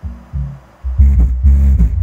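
Music played through a subwoofer alone on the subwoofer channel of a 5.1 surround amplifier, so only the deep bass is heard with no mids, highs or vocals. The bass pulses in a beat and becomes much louder and fuller about a second in.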